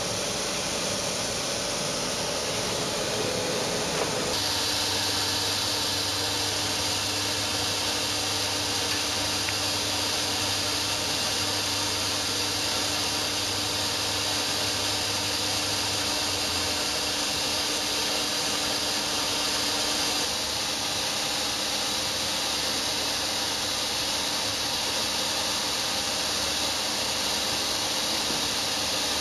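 Steady machine hiss with a low hum underneath, even in level; the sound shifts abruptly about four seconds in, and the hum drops away about two-thirds of the way through.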